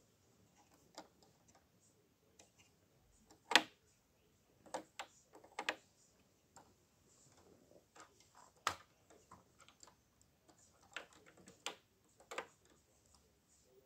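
Irregular light clicks and taps of hard plastic LEGO bricks being handled and touched, the sharpest one about three and a half seconds in.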